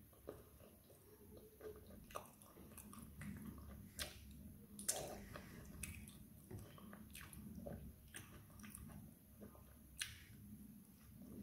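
A person chewing and smacking their lips while eating fried plantain and fish by hand, with scattered sharp mouth clicks.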